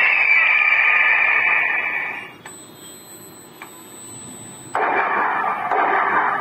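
Solar animal repeller's horn loudspeaker blaring a harsh recorded scare sound, which cuts out about two and a half seconds in, leaving a faint high steady whine, and starts up again for the last second and a half.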